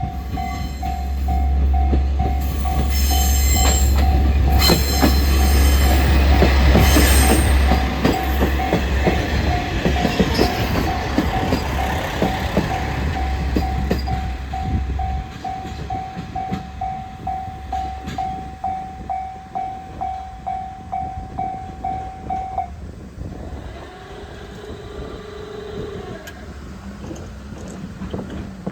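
Japanese railway level-crossing warning bell ringing in a steady pulse about twice a second while a train passes over the crossing with a heavy rumble and wheel clacks. The train noise fades after about 15 seconds, and the bell cuts off suddenly about 23 seconds in as the crossing clears.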